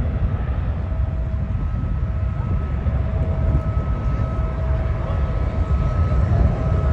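Low, steady rumble of a Boeing 767-316(ER) cargo jet's engines after takeoff, with a faint steady whine coming in about two seconds in.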